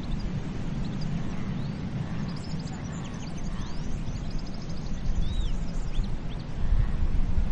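Ocean surf breaking on a beach, a steady low rush that builds again near the end, with birds chirping and whistling over it for much of the time.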